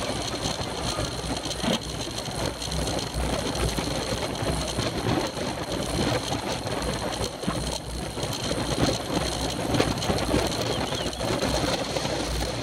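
Rushing wind and road rumble on a camera mounted on a racing bicycle at speed, steady throughout, with small clicks and knocks scattered through it.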